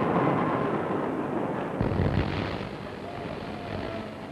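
Heavy industrial machinery noise from blast-furnace charging gear, a dense steady clatter and hum with a sudden deep surge about two seconds in. A faint wavering tone joins near the end.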